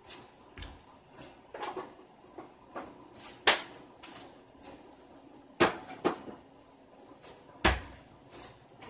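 Knocks and clicks of kitchen things being handled at a counter: a string of sharp separate strikes. The loudest comes about three and a half seconds in, with three more strong ones between five and a half and eight seconds.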